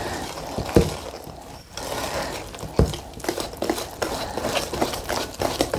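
Wire whisk beating a runny cake batter in a stainless steel mixing bowl, clicking and scraping against the metal sides in quick, uneven strokes, with two louder knocks, about a second and three seconds in.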